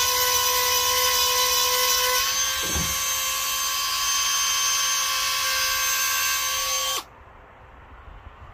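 Small handheld rotary grinder (Dremel-style) whining steadily as it sharpens chainsaw chain teeth. Its pitch steps up slightly about two seconds in, a light knock follows, and it is switched off and stops abruptly about seven seconds in.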